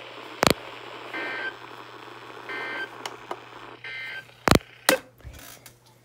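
NOAA Weather Radio end-of-message data code: three short, harsh two-tone digital bursts about 1.4 s apart, marking the end of the warning broadcast. Three loud sharp clicks, one just before the first burst and two close together near the end, are the loudest sounds.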